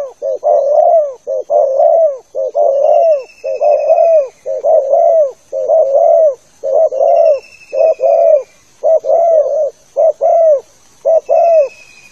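Spotted dove (tekukur) cooing over and over in short, quickly repeated phrases with only brief gaps between them, a call used to lure wild doves. A faint high falling whistle comes through about three times.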